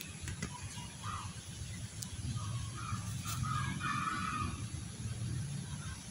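Outdoor ambience: a steady low rumble, with a few faint short chirps about a second in and again around three to four seconds in.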